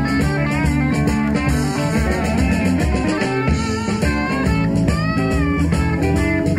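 Live rock band playing: electric guitar with gliding, bent notes over a steady bass line and drum kit.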